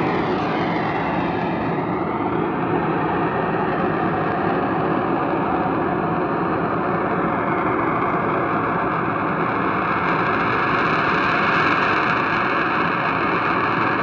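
A loud, distorted, continuous droning roar, the unexplained 'weird sound' recorded in the night sky, with tones sweeping down and back up in pitch during the first couple of seconds before it settles into a steady drone.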